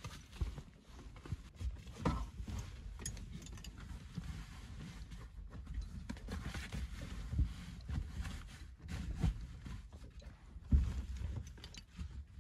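A fabric backpack rustling and bumping as it is handled and hung over a car seat's headrest, with irregular soft thumps through the car interior, the sharpest near the end.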